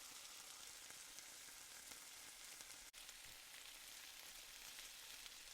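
Marinated chicken pieces frying in hot refined oil in a frying pan: a faint, steady sizzle, with a momentary break about three seconds in.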